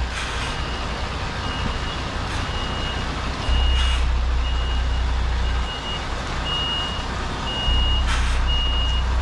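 A truck's reversing alarm beeping about once a second, in a steady high tone, over the diesel engine of a MAN HGV tractor unit reversing a trailer onto a loading bay. The engine rises in revs twice, about three and a half seconds in and again near the end. A few brief hisses come in between.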